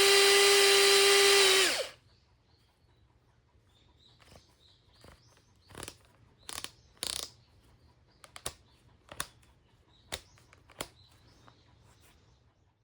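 Makita DF458D 18V cordless driver drill, freshly overhauled with new carbon brushes, running at a steady high whine, then released just under two seconds in and spinning down to a stop. A series of light clicks and knocks follows.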